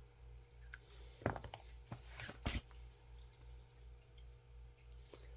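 A few light clicks and taps from handling small chainsaw parts during a clutch and sprocket job, loudest twice about two and a half seconds in, over a low steady hum.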